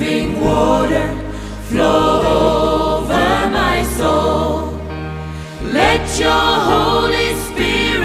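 Christian choral music: voices singing in gliding phrases over a sustained low bass.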